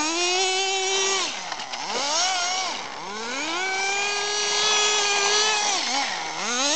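Gas-powered RC car's small two-stroke engine revving hard: the pitch climbs to a high, steady whine, falls back, and climbs again. There are three full-throttle pulls, a short one near the start, a brief one about two seconds in, and a long one of about three seconds in the middle, and it is rising again at the end.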